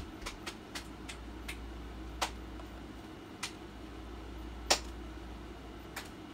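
Remote control buttons pressed one at a time, giving about nine sharp clicks at irregular intervals. The loudest comes about three-quarters of the way through. A steady low hum runs underneath.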